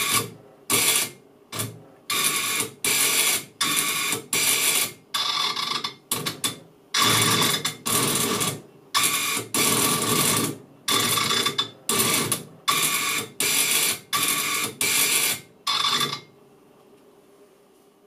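Tornado-S missile vane servo motor running in a rapid series of short bursts, each a buzz with a steady whine in it, as the control board drives the vane to new angles. The bursts stop about two seconds before the end.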